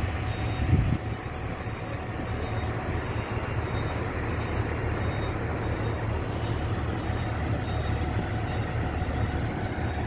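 Oshkosh Striker airport fire truck running as it drives slowly forward, a steady low diesel rumble, with a brief knock about a second in. Short high-pitched beeps repeat about twice a second above it.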